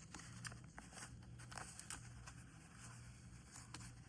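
Faint clicks and light rustling of a USB-C cable being handled and plugged in, over a low steady hum.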